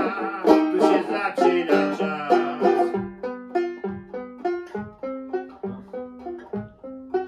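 Banjo playing an instrumental passage: a full, dense run of plucked notes for about three seconds, then quieter single picked notes, each ringing and dying away.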